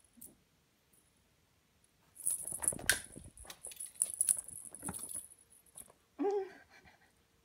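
A Ragdoll kitten pouncing on and batting a wand toy: a few seconds of scuffling, clicking and rustling, followed by a brief pitched call about six seconds in.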